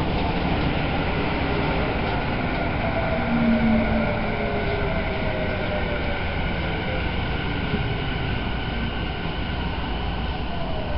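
Running sound of a Tokyu 5050 series 4000-subseries train heard inside a motor car in a subway tunnel: a steady rumble of wheels and running gear. Over it, the whine of the traction motors and Hitachi inverter falls slowly in pitch as the train slows.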